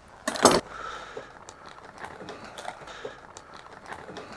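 Oven fries poured from a plastic bag into a stainless-steel wire grill basket: a brief loud clatter about half a second in, then scattered light clicks and rattles as the fries settle and the basket is handled.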